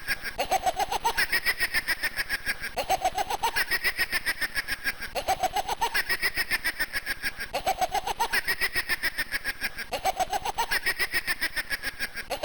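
1994 Spearhead Industries hanging laughing pumpkin prop playing its electronic cackling laugh on a loop. Each cycle is a short rising note followed by a rapid run of pulses, repeating about every two and a half seconds, five times over.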